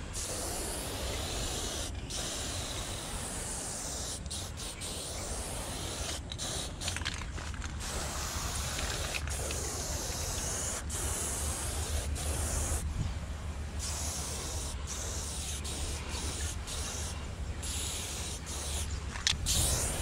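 Aerosol spray-paint can hissing as paint is sprayed in long steady passes, broken by many short pauses where the nozzle is let go.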